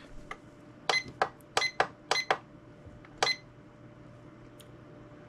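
Digital LED wall clock's buzzer giving short, sharp beeps as its setting buttons are pressed, about seven in quick succession between one and three and a half seconds in.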